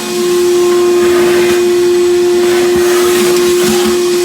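Wet vacuum running steadily with a constant whine and hiss, sucking the water out of a toilet bowl and trap to drain it for winter. It gets louder right at the start.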